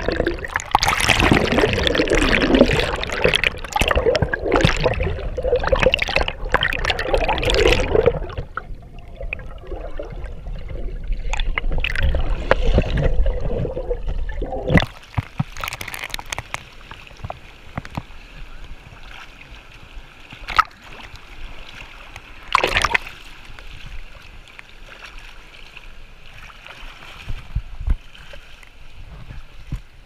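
Water splashing and sloshing around a swimmer's action camera as it dips under the surface of a river pool, loud and muffled for about the first eight seconds. After about fifteen seconds, with the camera above water, the steady rush of a small waterfall and rapids goes on, with a couple of sharp knocks.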